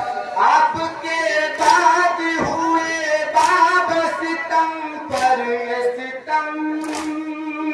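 Men's voices chanting a noha (Urdu lament) in held, drawn-out notes through a microphone, with a sharp slap about every second and three-quarters: chest-beating (matam) keeping time with the chant.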